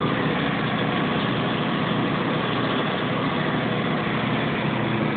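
Motor yacht's engine running steadily under way: an even drone with a faint low hum.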